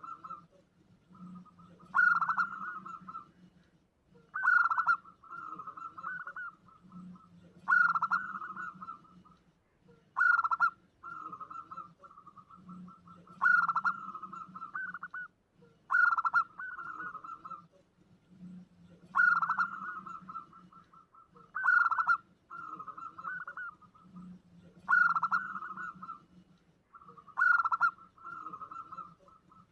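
Zebra dove (perkutut) cooing over and over, a lure call for drawing in wild doves. Each phrase opens with a loud, sharp note followed by a quick run of rolling notes, about every three seconds.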